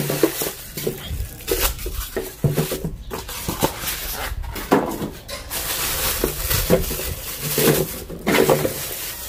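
Plastic bag crinkling and rustling in quick irregular bursts as it is pulled off a small kitchen appliance. Styrofoam packing blocks rub against the unit as they are removed near the start.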